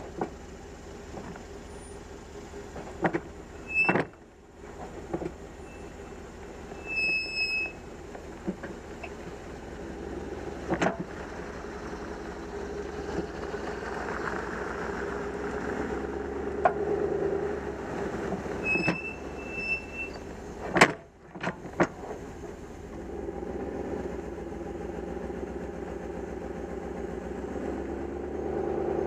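Flat-towing rig of a Suburban pulling a Jeep Wrangler on a tow bar, heard at the rear hitch as it drives off: a steady road and engine drone that grows louder from about halfway as it picks up speed, broken by several sharp knocks and clanks and a few short high squeals from the hitch and tow bar.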